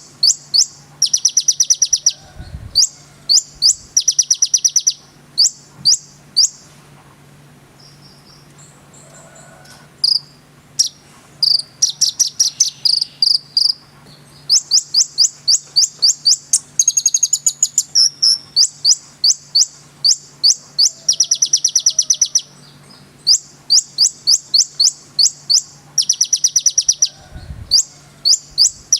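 Olive-backed sunbird (konin) singing in full, rapid song: bouts of sharp, high chips and fast trills with short pauses, over a faint steady low hum.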